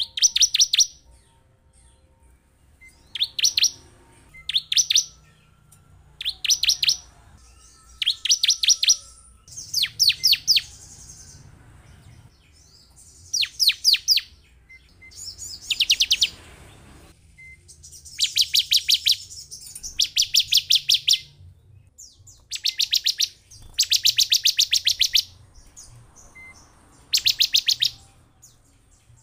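Bar-winged prinia (ciblek) song: a burst of fast, rapidly repeated high notes every second or two, the bursts growing longer later on.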